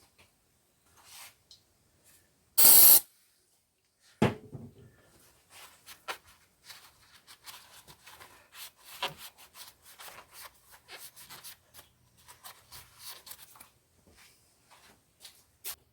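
Steel parts of a backhoe hydraulic control valve being handled and picked at while its old seals are pried out: a long run of light scrapes, clicks and rubbing. A short, loud hiss about three seconds in, then a sharp clunk just after four seconds.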